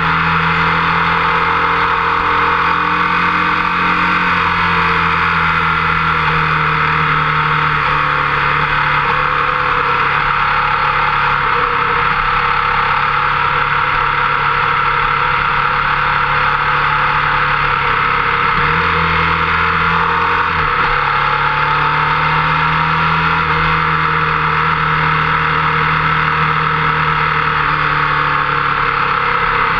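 Motorcycle engine running steadily at speed, heard from a camera on the front fork with wind rushing over it. Its low note shifts in steps a few times.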